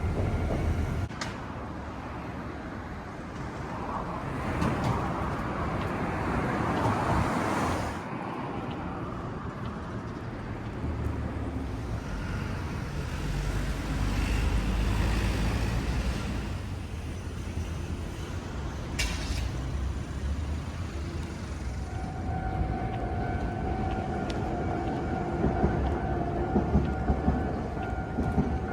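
A train running on the rails with a steady rumble. A steady electric whine comes in about two-thirds of the way through, and a few sharp clacks follow near the end.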